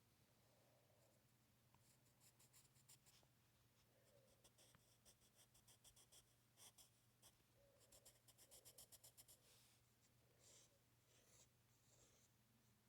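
Faint scratching of strokes being drawn on paper, in short bursts, with a quicker run of back-and-forth strokes late on.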